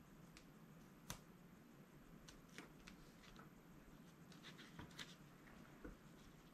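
Near silence with faint, scattered taps and rustles of hands pressing foam tape and handling card stock, the sharpest click about a second in.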